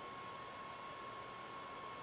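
Quiet room tone: a steady hiss with a constant faint high-pitched whine.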